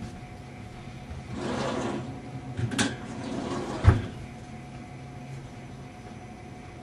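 Glass-door drinks cooler opened, a drink taken out with a few sharp clicks, and the door swung shut with a thud about four seconds in. A steady low hum runs under it.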